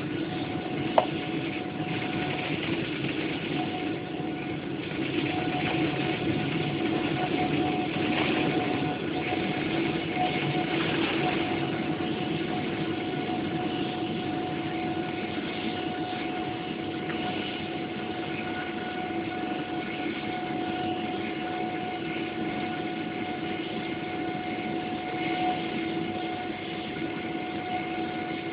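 Boeing 777-300ER's GE90 jet engines at take-off thrust, heard inside the cabin: a steady roar with several held whining fan tones. A rumble from the wheels rolling on the runway fills the first ten seconds or so and dies away as the aircraft lifts off and climbs; a single sharp click about a second in.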